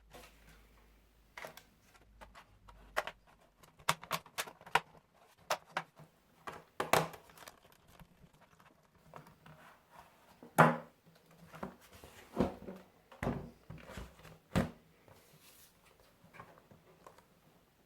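Irregular clicks, taps and knocks with some rustling: hands handling laptop and drive hardware, the loudest knock about ten seconds in.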